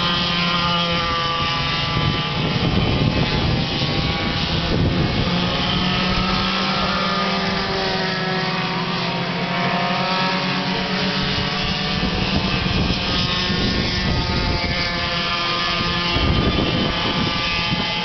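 Several go-kart engines racing, a layered buzz of different pitches that rise and fall as the karts pass and change speed.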